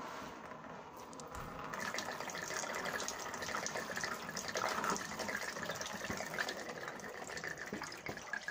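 Engine coolant draining from a car radiator and splashing into a metal drain pan. The steady stream grows stronger about two seconds in.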